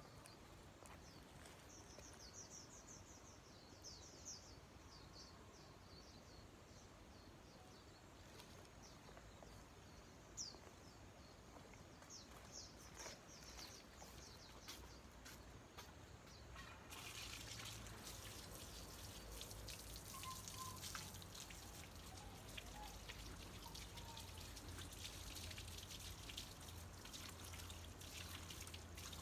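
Faint bird chirps, then about halfway through an outdoor wall tap is opened and water runs out in a steady trickle and splash.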